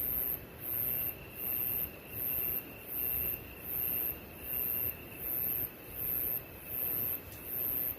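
Insect chirping in a very high-pitched, evenly repeating pulse, a little more than once a second, over a steady fainter whine and a low steady rush.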